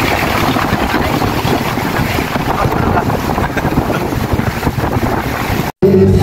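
Wind buffeting a phone's microphone outdoors: a loud, gusty rumble with no clear tone. It cuts off suddenly near the end and music begins.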